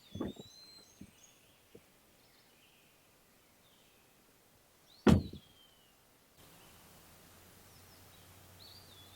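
Two dull thumps, one just after the start and a louder one about five seconds in, with a couple of light knocks between them and short descending bird chirps. A steady low hum sets in after about six seconds.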